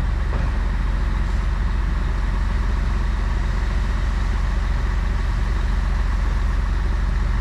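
Steady low rumble of outdoor background noise, deep in pitch and unchanging, with no single event standing out.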